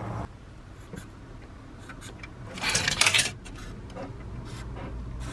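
Sharpie marker scratching across the painted steel floor of a van in a quick run of short strokes, about two and a half seconds in.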